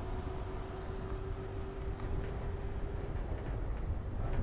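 A vehicle driving on a road, heard from on board. There is a steady low rumble of engine and tyres, and a steady hum that drops away about three seconds in.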